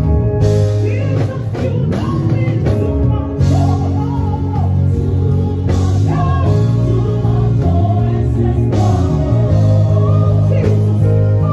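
Live gospel worship band: an electric bass guitar playing strong low notes with drums and cymbals, while voices sing over the band.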